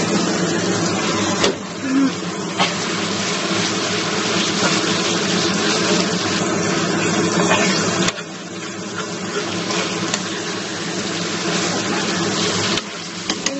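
Sambal terasi (chili and shrimp-paste sauce) frying in oil in a pan, a dense, steady sizzle and crackle with a low hum underneath.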